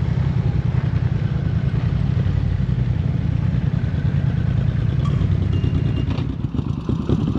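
Motorcycle engine running steadily with a low, rapid pulsing; the sound thins a little about six seconds in.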